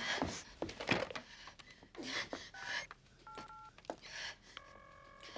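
Touch-tone telephone being dialled: two short key beeps a little after halfway, then a longer steady tone near the end as the call goes through. Before the beeps comes a person's breathing.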